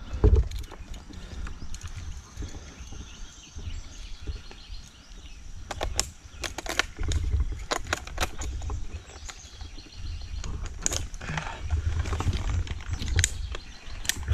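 Irregular clicks, clinks and knocks of an arborist's climbing gear being handled and clipped on, with a steady low rumble and a heavier thump just at the start.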